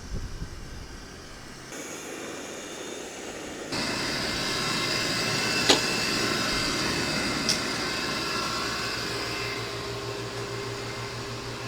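Steady whirring hum of cooling fans and air-handling equipment in a radio tower's equipment building. It starts abruptly about four seconds in, with two sharp clicks in the middle.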